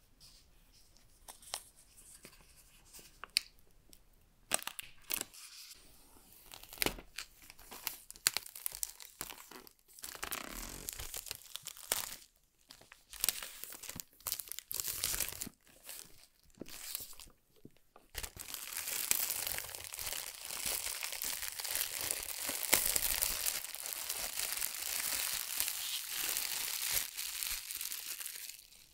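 Clear plastic wrap being peeled and torn off a cardboard headphone box by hand: scattered crackles and rustles at first, then steady crinkling and tearing from about two-thirds of the way through until just before the end.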